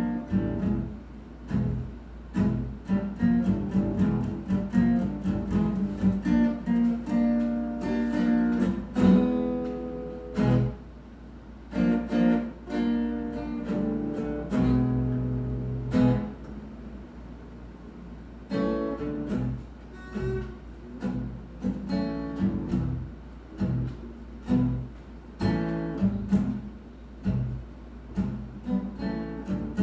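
Guitar playing, a run of picked notes and strummed chords, with a long low note held for about a second and a half around the middle.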